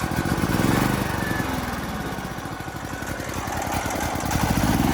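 Duramax XP10000HX portable generator's engine running just after start-up, its speed rising and falling twice before settling. It runs with the carbon monoxide sensor bypassed by jumping its brown and black wires.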